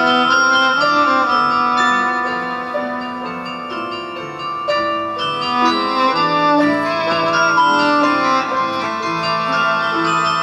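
Cello, piano and carillon playing together: the cello bows held low notes under piano chords, while carillon bells strike and ring on above them.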